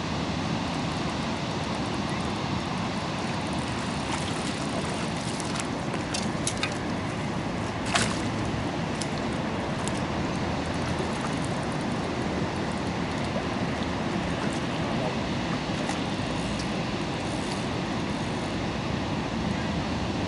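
Steady outdoor background noise, an even hiss-like wash with no distinct tones, broken by a few light clicks and one sharper click about eight seconds in.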